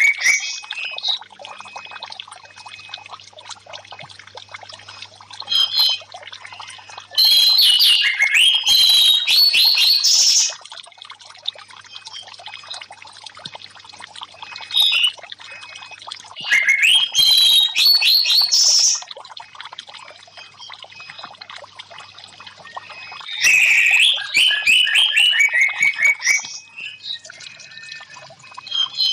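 Orange-headed thrush singing in three long phrases of rapid, sliding high notes, with a few short notes between, over a steady trickle of running water.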